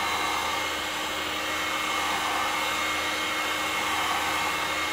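Gamma electric heat gun running steadily: a constant rush of blown air with a faint steady whine, heating a sheet of thin PVC pipe to soften and flatten it.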